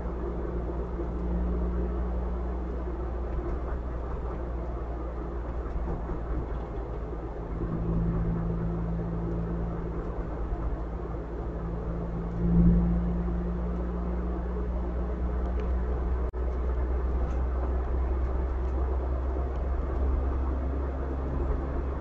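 A car driving: steady low road rumble with the engine's hum shifting in pitch, swelling louder for a moment about twelve seconds in.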